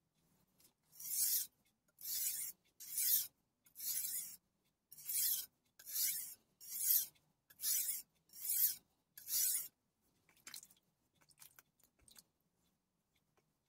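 Kai Shun Gold chef knife blade being pushed and pulled across the wet 300-grit side of a soft Kai combination whetstone: about ten scraping grinding strokes a little under a second apart. The strokes stop about ten seconds in, leaving a few faint scrapes and ticks.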